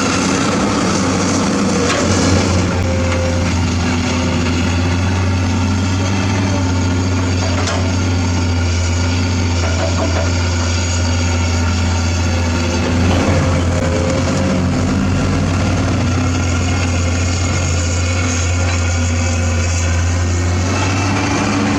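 Heavy diesel engine of earthmoving equipment running steadily, a constant low drone with no change in speed.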